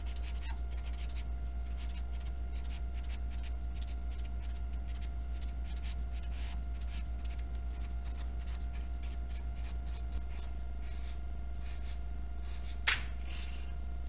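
Black Sharpie permanent marker scratching across paper in many quick, short strokes as line patterns are drawn in. A single sharp click near the end.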